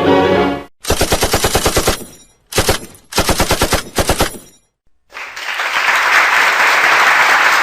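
Machine-gun sound effect: three bursts of rapid automatic fire, a long one, a short one and another long one, with gaps between. About five seconds in, a steady loud hiss of noise starts and keeps going.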